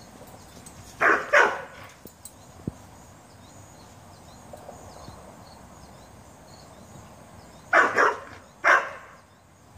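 A dog barking: two barks about a second in, then three more near the end.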